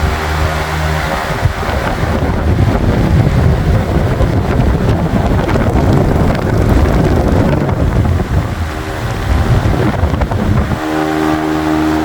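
Ventisol VP-60 wall fan (60 cm, 160 W) running: a steady motor hum at first. About a second in, the fan's airflow blasts the microphone with loud, uneven wind noise that covers the hum. The hum comes back near the end.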